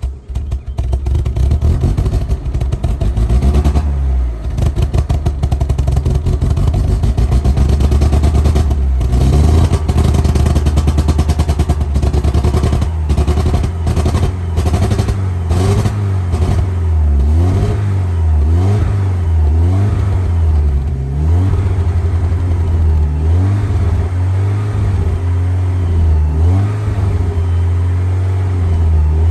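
1990 Mazda Miata's 1.6-litre four-cylinder engine running, revved again and again in short blips with the pitch rising and falling, from about halfway through. This is an Italian tune-up, burning off carbon after a Seafoam treatment through the intake.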